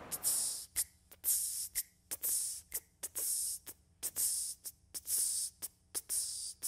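Rhythmic hissing percussion, a steady beat of short crisp ticks and longer swishes, the opening groove of a song.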